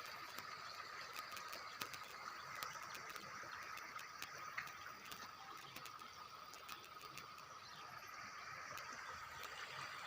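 Faint, steady chorus of small calling animals: a continuous high-pitched drone, with scattered light clicks throughout.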